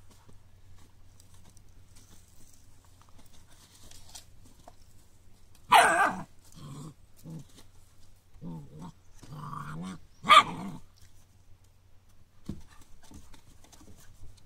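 Entlebucher Mountain Dog puppy barking: two loud, sharp barks about four and a half seconds apart, with shorter, softer barks between them.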